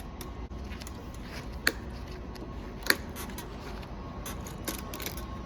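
Plastic zip ties being snipped with cutters: two sharp snaps about a second apart, then a few lighter clicks of handling.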